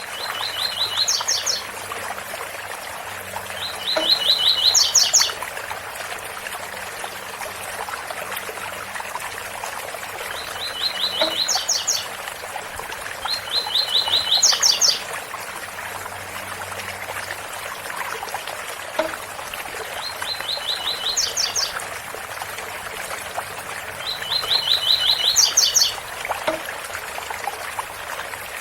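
Double-collared seedeater (coleiro) singing its 'tui tui bitola' song: six short phrases in three pairs, each a fast run of repeated notes ending in a few higher notes, over the steady rush of a waterfall.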